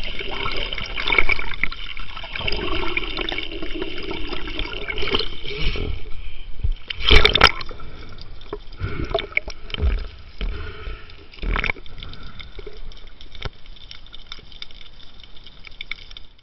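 Underwater sound picked up by a camera in its housing during a freedive: water sloshing and bubbling, with scattered knocks and clicks, one loud knock about seven seconds in.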